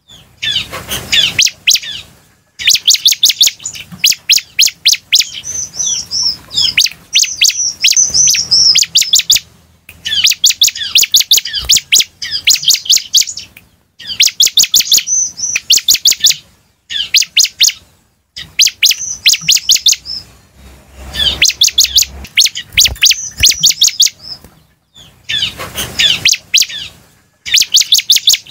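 Bar-winged prinia (ciblek) singing: bouts of rapid, high, chattering notes with a few slurred whistles, each bout one to several seconds long, separated by short pauses.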